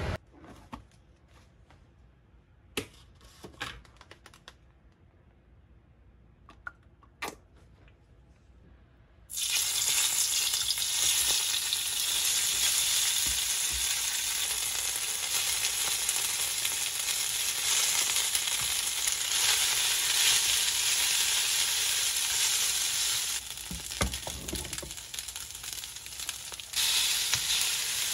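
Glass noodles with spinach and carrots frying in oil in a pan, a steady loud sizzle that starts suddenly about a third of the way in and is stirred with chopsticks. Before it there are only a few faint clicks and taps.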